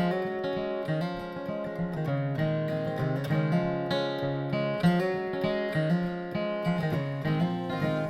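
Acoustic guitar playing the instrumental close of a gospel song, a run of picked and strummed notes with no voice.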